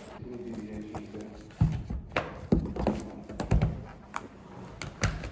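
Pens and small stationery items being handled and put down on a desk: a run of short knocks and clicks, most of them between about one and a half and four seconds in, with one more near the end.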